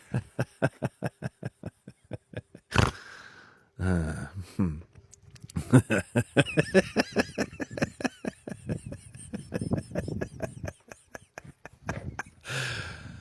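Laughter in long runs of rapid, even bursts, with a break about three seconds in and another near the end.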